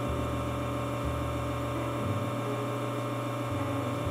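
Lelit Bianca V3 espresso machine's rotary pump running steadily during a detergent backflush, pushing water against a blind filter basket. Its hum shifts slightly in pitch a few times.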